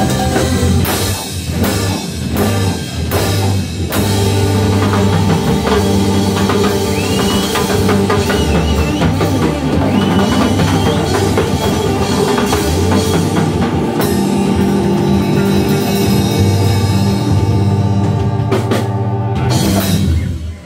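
Live rock band playing an instrumental passage: drum kit, bass and electric guitar with bending lead notes, building to a run of heavy drum hits near the end as the song finishes.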